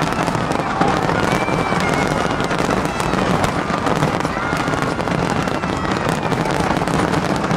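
Large aerial fireworks display: a dense, continuous barrage of bursts and crackling, with crowd voices underneath.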